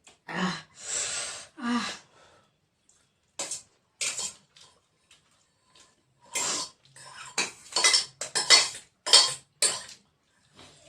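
Plates and eating utensils clinking and scraping during a meal, in irregular clusters: a short run of scrapes at the start, a few single clinks, then a busier stretch of quick clinks and scrapes in the second half.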